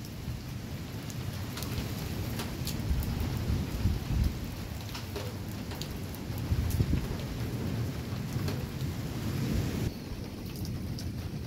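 Thunder rumbling low and almost without pause over steady rain, swelling louder about three and again about seven seconds in, with scattered close raindrop ticks.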